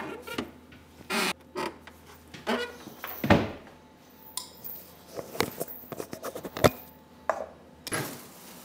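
Kitchen clatter from items being handled at a counter: a run of knocks, clinks and short scrapes or creaks, with two sharper knocks a little over three seconds in and a little under seven seconds in.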